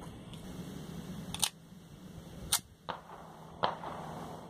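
A Ruger SR1911 .45 pistol with a Storm Lake drop-in threaded barrel fires a slow string of single shots, about one a second, each a sharp crack. The pistol cycles without feed problems.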